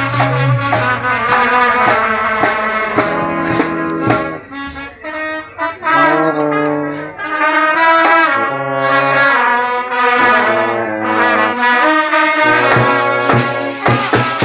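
A brass band playing a melody in held notes, with rattling percussion keeping time; the playing softens briefly about a third of the way in.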